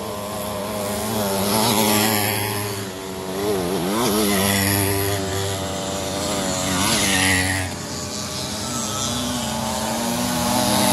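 Small two-stroke engines of racing motorized bicycles running hard, several at once. Their pitch swings up and down as they rev and pass, with clear dips about four seconds in and again about seven seconds in.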